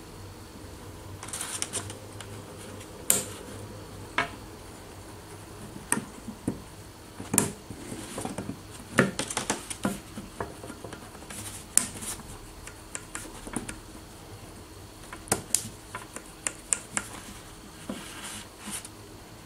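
Irregular small, sharp clicks and taps from a Remington 870 shotgun trigger group being handled: the retaining pin is pressed back in against its spring, then the Fortmann's left-hand safety button is pushed back and forth, clicking as it moves.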